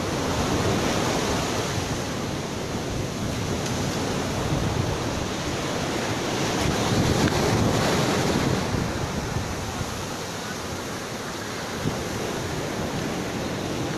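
Surf breaking and washing up the beach, a steady rush that swells louder about halfway through, with wind buffeting the microphone.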